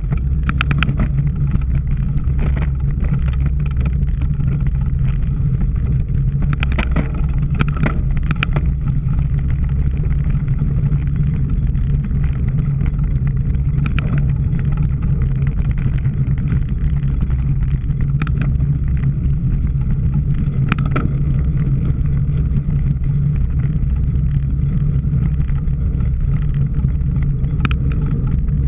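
Steady low rumble of wind and riding noise on a camera carried on a cyclocross bike, with scattered sharp clicks and rattles.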